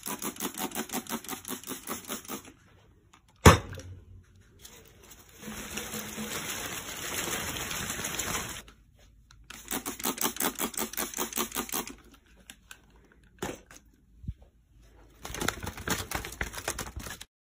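Rapid rustling and rattling of houseplant leaves as a pothos and other potted plants are shaken hard by hand, in bursts of about eight shakes a second with short pauses between. A single sharp knock comes about three and a half seconds in.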